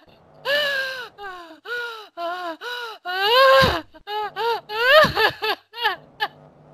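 A woman's voice in a quick string of high, short cries, each rising and falling in pitch, about two a second, stopping near the end: emotional release under hypnosis.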